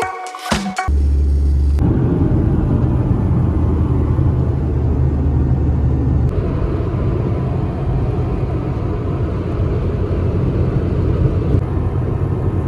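Steady low rumble of a moving vehicle, with an even noise of road and engine. About a second in there is a heavier low boom lasting about a second before it settles.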